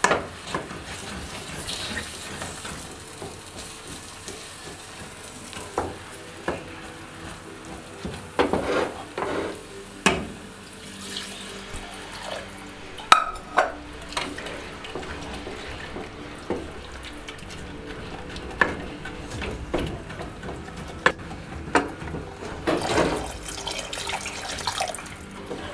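Wooden spatula stirring a groundnut paste thinned with water in a stainless steel saucepan: wet stirring with irregular scrapes and knocks of the spatula against the pot.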